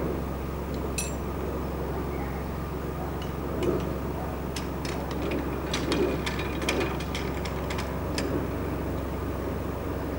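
Narrowboat engine running with a steady low hum, with a run of light sharp clicks and ticks through the middle.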